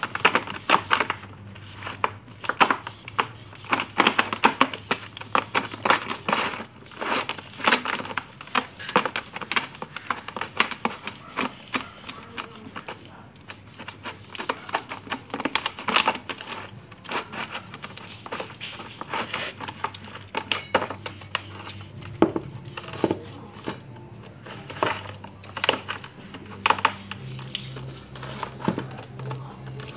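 Brass incense-burner parts being scrubbed wet with a steel-wool pad and brush in a plastic basin: quick, irregular scratching strokes with small metallic clinks.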